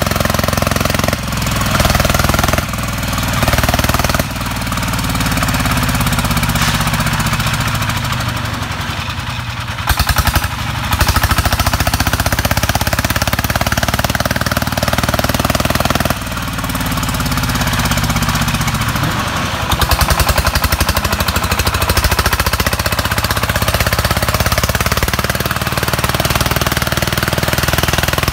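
Single-cylinder diesel engine of a công nông two-axle-drive farm tractor, running with a fast chugging beat, its revs rising and falling several times. There are louder stretches of pounding about ten seconds in and again near twenty seconds.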